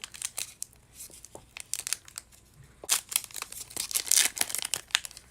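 Foil trading-card pack wrapper crinkling and tearing as it is opened and handled, in scattered sharp crackles that are busiest about three and four seconds in.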